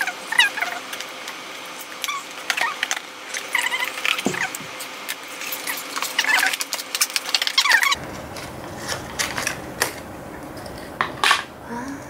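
Earphone packaging being handled and pulled at by hand: plastic and cardboard rustling and crinkling with many sharp clicks and a few short squeaks, as something in the box refuses to come apart.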